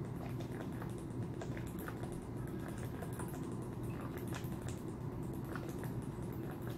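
Close-miked mouth noises: a run of small wet clicks and smacks, the kind of sound that annoys listeners, over a steady low room hum.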